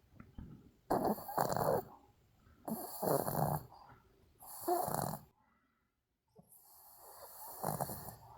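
A sleeping Maltese dog snoring, four rough snores spaced about one and a half to two seconds apart, the last one longer and building more gradually.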